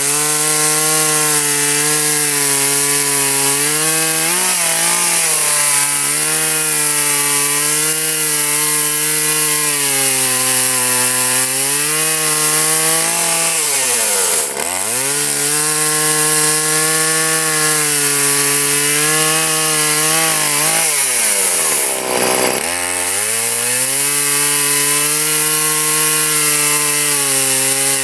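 Poulan Pro PP4620AVX two-stroke chainsaw running at full throttle, bucking a Douglas fir log into rounds. The engine holds a steady pitch under load in the cut. Its revs drop and climb back up twice, about halfway through and again about three-quarters in, as the throttle is let off between cuts.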